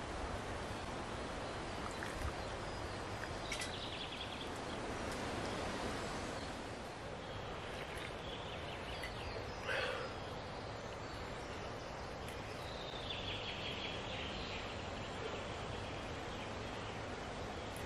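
Outdoor woodland ambience: a steady background hiss with faint bird calls a few times, and one short, louder sound about halfway through.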